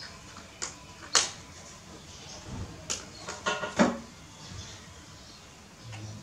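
A handful of short, sharp knocks and clicks from objects being handled and bumped. The loudest comes about a second in, and a cluster follows around three to four seconds in, with a brief high squeak among them.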